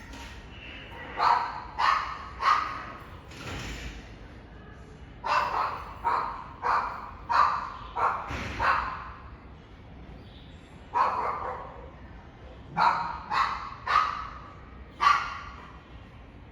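Dog barking in bouts of several sharp barks, with pauses of a few seconds between bouts.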